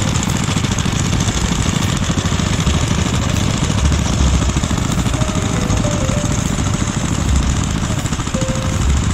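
Several small vintage stationary engines running together, a steady, rapid low chugging.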